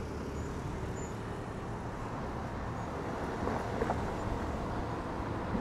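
Steady road-traffic noise heard from a moving bicycle on a busy city road, with wind rumbling on the microphone.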